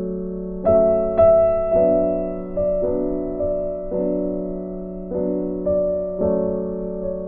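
Background music: slow piano-like keyboard chords over a held low note, each chord struck and left to fade.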